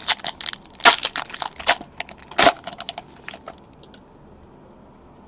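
Plastic-foil trading-card pack wrapper being torn open and crumpled, a run of sharp crackles with two louder crunches, dying away after about three and a half seconds.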